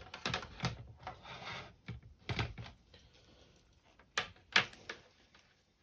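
Handling noise from cables and plugs being worked by hand: rubbing and rustling with scattered sharp clicks, the two loudest close together a little after four seconds in.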